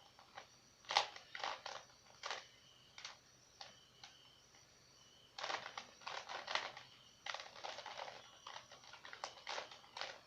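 Plastic Rubik's cube being twisted by hand: short clicking, rasping layer turns, some single and some in quick runs of several turns, busiest around the middle and near the end.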